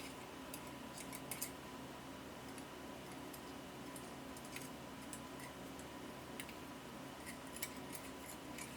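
Faint, scattered small metallic clicks and ticks as the pin springs are taken out of a disassembled pin-tumbler lock, with a little cluster of clicks about a second and a half in.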